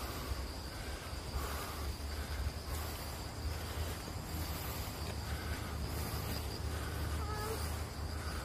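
Insects trilling steadily in the woods, one unbroken high-pitched note, over a low rumble.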